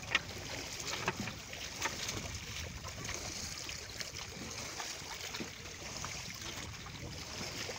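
Steady wash of sea water with scattered small splashes and slaps against a boat's hull.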